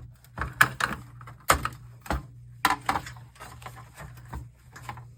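Clicks and knocks of plastic and metal monitor parts being handled and pried while a board inside is worked loose, over a steady low hum.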